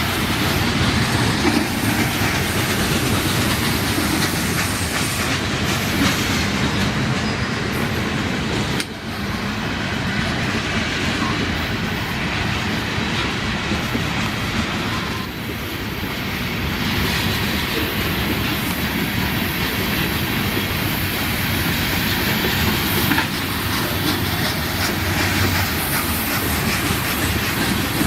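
Freight train cars rolling past at close range: a steady rumble and rattle of wheels on the rails, with brief dips in level about 9 and 15 seconds in.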